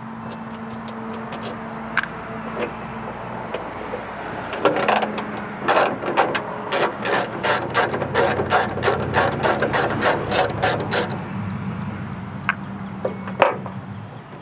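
Hand ratchet and socket clicking as it backs a 1/2-inch nut off the starter solenoid's power terminal: a fast, even run of about four clicks a second from about four and a half seconds in until about eleven seconds in, with a few lighter ticks before it. A single sharp knock near the end.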